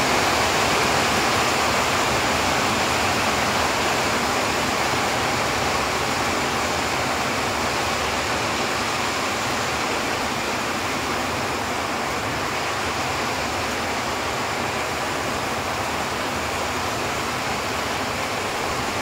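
Heavy rain pouring down onto a paved road, a steady dense hiss without a break.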